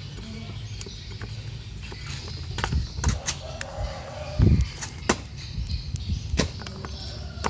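A handful of sharp clicks and knocks from small metal carburetor parts being handled and set down, with one heavier thud about halfway through.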